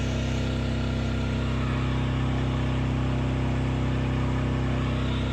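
Mahindra Jeeto BS6 diesel engine idling steadily, left running with a newly fitted knock sensor while the DPF fault code clears.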